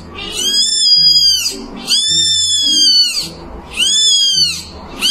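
Very young kitten mewing loudly: three long, high-pitched cries that rise and then fall in pitch, each about a second long, with a fourth starting right at the end.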